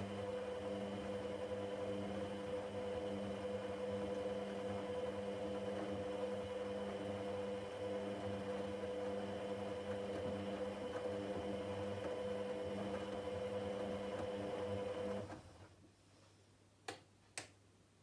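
Candy GODF800 washing machine running with a steady hum that cuts off about fifteen seconds in, followed by two sharp clicks half a second apart.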